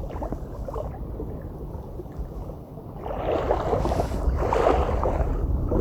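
Wind buffeting the microphone: a steady low rumble, with a louder rushing gust coming in about three seconds in.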